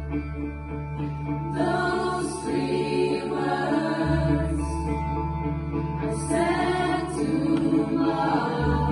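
Pop choir singing a slow song, two sung phrases swelling in about a second and a half in and again around six seconds in, over low held notes that change about every four seconds.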